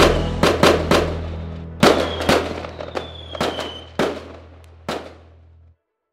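Firework bangs, about ten at irregular spacing, each with an echoing tail and one thin falling whistle among them, over a held low synthesizer bass note. Both fade and cut off abruptly shortly before the end.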